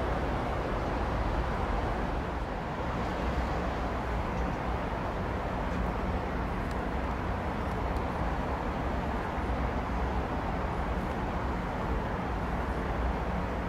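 Steady low rumble and hum of a railway yard, with a few faint ticks; no train passes. The hum fits an electric ICE train standing idle with its equipment running.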